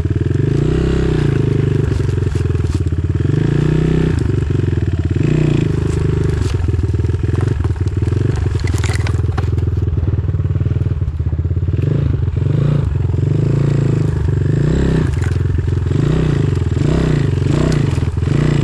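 Enduro motorcycle engine running with the revs rising and falling as the bike creeps down a steep, slippery descent, with scattered clatter and knocks.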